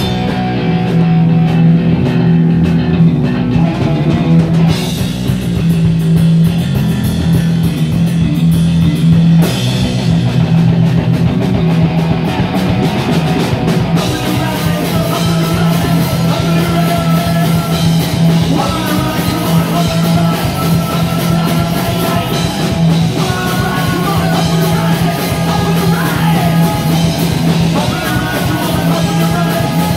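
Punk rock band playing live: electric guitar, bass guitar and drum kit, with the cymbals coming in harder about fourteen seconds in and a singer's voice near the end.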